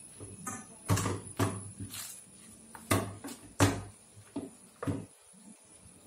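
Metal kitchen utensils knocking and clanking as they are handled: about eight sharp knocks with a short ring after each, spread over roughly four seconds, the loudest about a second in and near the middle.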